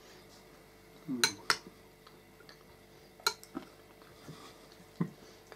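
Metal forks and a spoon clinking against dinner plates while eating: a handful of short sharp clinks, two about a second in, two more a little after three seconds, and one near the end, with quiet between.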